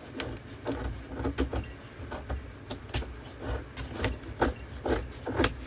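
Steel folding-knife blade shaving curls off a chunk of 1x4 wood board to make feather sticks: a run of short, irregular scraping strokes.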